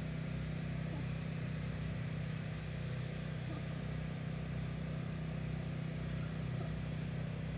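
An engine running steadily with an even low hum that does not change in pitch or level.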